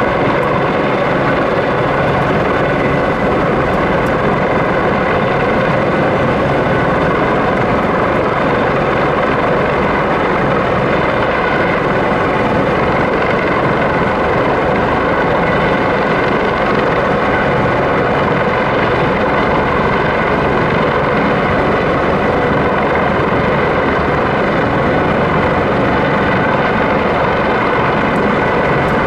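Airbus AS365 Dauphin twin-turbine helicopter hovering with a slung load on a long line, its rotors and turbines giving a steady, unbroken drone.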